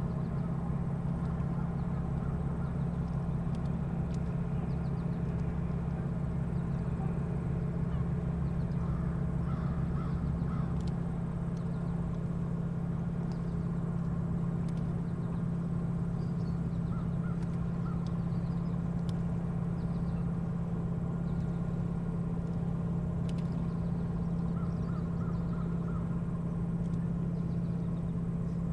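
Crows cawing in short runs of three or four calls, several times, over a steady low mechanical hum whose deepest part drops away about a third of the way through.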